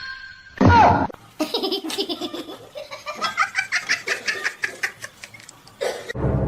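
A person laughing in quick repeated bursts for several seconds, after a short loud cry with a falling pitch just before.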